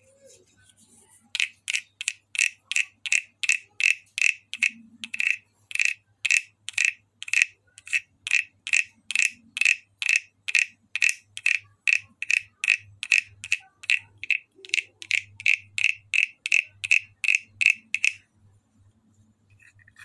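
Small hand-held wooden croaking frog (frog guiro) played with its wooden stick: a steady run of short, sharp, ringing wooden clicks, a little over two a second, starting about a second in and stopping shortly before the end.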